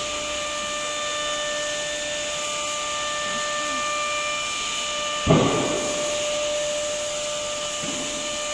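CNC router running: a steady hiss with a couple of held whining tones, typical of the machine's vacuum-table pump and drives. A single sudden thump about five seconds in.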